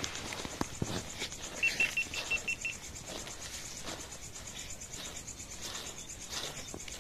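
Crickets chirring steadily in a fast, pulsing high trill, with a short run of about seven quick high pips about two seconds in and a few scattered light knocks and scrapes.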